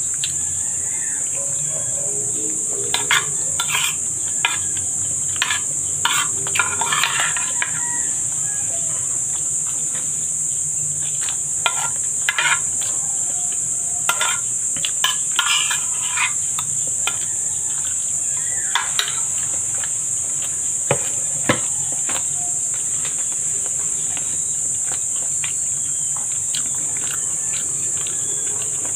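Steady high-pitched insect chirring throughout. Over it come clusters of short clicks and scrapes of a spoon against a ceramic bowl, with chewing, during the first two-thirds.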